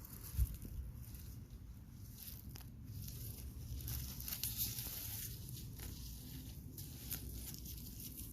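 Rustling and scraping of soil and plant stems being handled while potatoes are dug up, with a single thump less than a second in.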